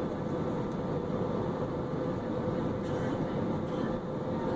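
Jet airliner cabin noise on final approach for landing: a steady rush of engines and airflow with a steady hum running through it.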